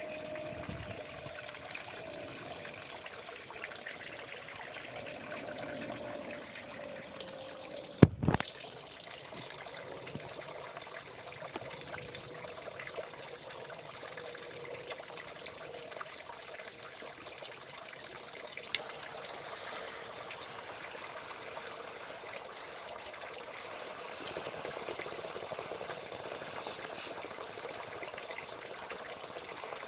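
Steady trickling of running water, with one sharp knock about eight seconds in.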